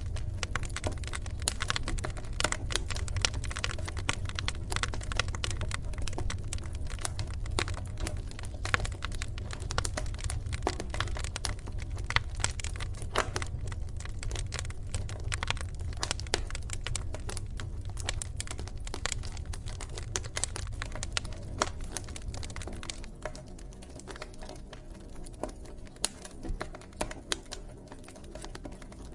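Wood fire in a fireplace crackling and popping with many irregular sharp snaps over a low rumble; the rumble fades and the crackle thins out about two thirds of the way through.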